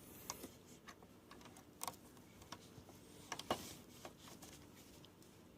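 Faint small clicks and taps of a CR2032 coin-cell battery being fitted into its holder on a desktop computer's motherboard, the loudest clicks about two seconds and three and a half seconds in.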